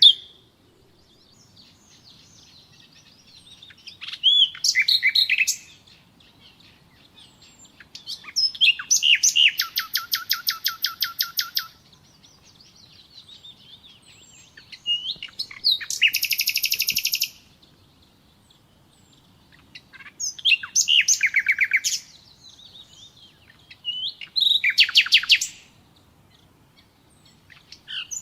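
Nightingale singing five phrases a few seconds apart, each a quick mix of whistles and rapid repeated notes. The longest, near the middle, is a fast run of evenly repeated notes lasting about three seconds.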